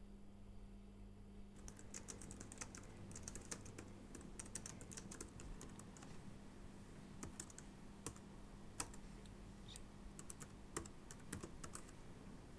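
Typing on a laptop keyboard: quick, irregular key clicks in runs, starting about a second and a half in, over a faint steady hum.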